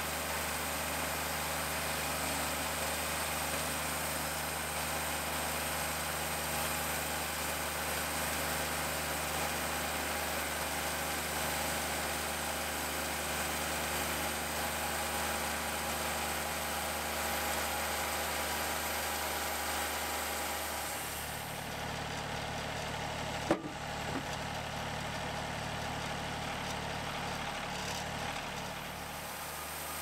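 Wood-Mizer LT50 hydraulic sawmill running, its engine steady under load while the band saw cuts through the log with a hiss. About two-thirds of the way in the high hiss fades and the engine note shifts, and a single sharp knock follows a couple of seconds later.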